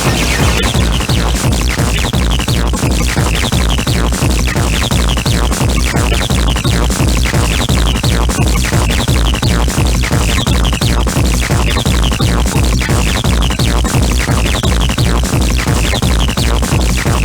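Electronic dance music in a techno style, with a steady kick drum at a little over two beats a second under a repeating synth figure.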